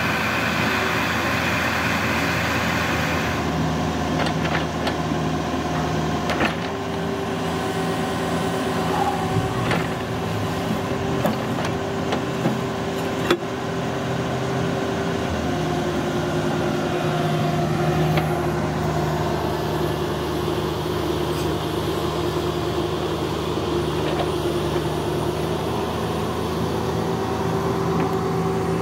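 CAT 305.5E mini excavator's diesel engine running steadily while it tracks and works its hydraulic bucket and thumb, with a few sharp metal clanks, the loudest about halfway through, as the bucket meets a rusty steel channel beam.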